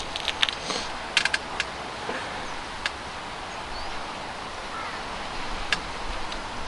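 Light, scattered clicks and taps of handling at a shooting bench: pellets picked from a metal tin and the air rifle's action being worked, over a steady background hiss. A quick cluster of clicks in the first second or so, then single clicks near the middle and near the end.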